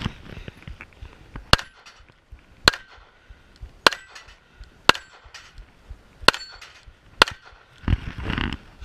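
Six single pistol shots fired at a slow, aimed pace, roughly one every second or so.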